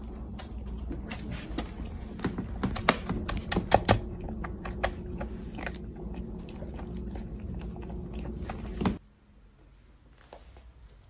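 A cat eating dry kibble from its bowl: quick, irregular crunching and clicking, which cuts off abruptly about nine seconds in, leaving only a faint quiet sound.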